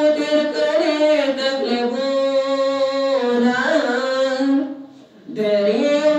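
A man singing a Pashto nazm, a devotional poem, in long drawn-out phrases; one phrase ends about four and a half seconds in and, after a short breath, the next begins.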